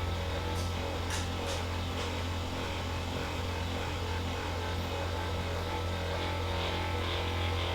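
Steady low hum, with a few faint short clicks in the first two seconds.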